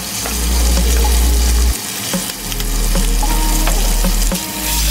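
Steak and lamb cutlets sizzling in hot olive oil and fat in a grill pan, with sharp clicks and taps of a fork as the meat is lifted out into a plastic container. A low rumble underneath cuts out about two seconds in and returns near the end.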